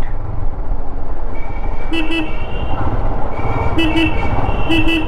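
Motorcycle engine and wind rumbling while riding, with a vehicle horn tooting briefly three times, about two, four and five seconds in.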